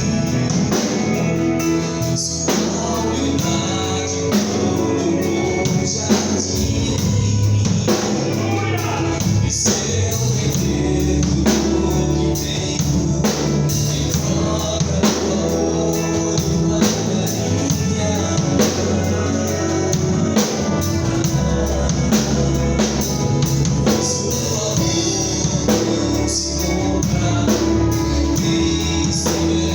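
Gospel worship band playing a song with singing over a drum kit, the drums keeping a steady beat.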